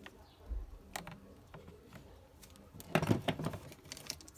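Hand-tool handling of a corded drill's plastic housing and small parts: a few light ticks, then a quick flurry of sharp clicks and knocks about three seconds in.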